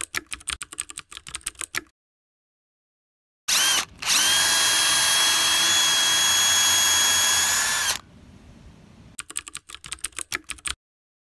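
A power drill runs at a steady, even speed for about four seconds, boring a pilot hole into a wooden board, with a brief stutter just after it starts. Rapid keyboard-typing clicks come before it and return near the end.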